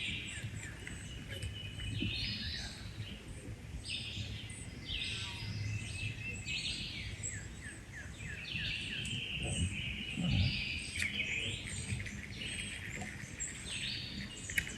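Wild birds calling over and over in short high chirps, roughly one call every second, against a low steady outdoor background.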